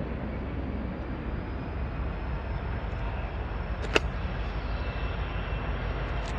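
Distant diesel freight locomotive approaching, a steady low rumble, with one sharp click about four seconds in.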